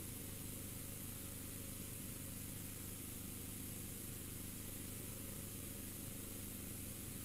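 Quiet room tone: a steady low hum with a faint hiss that never changes.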